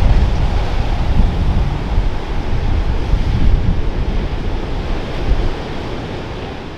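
Heavy winter-storm surf breaking, with wind buffeting the microphone, fading down near the end.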